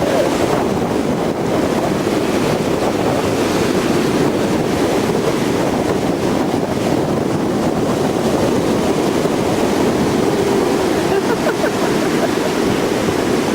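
Heavy storm surf breaking, with strong wind buffeting the microphone: a loud, steady rush of noise.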